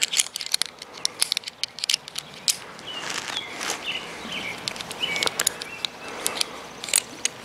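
Climbing hardware being handled: quick metal clicks and rattles of a carabiner and Mad Rock Safeguard rope device being worked off the climbing rope, densest in the first couple of seconds. A few short high chirps sound in the middle.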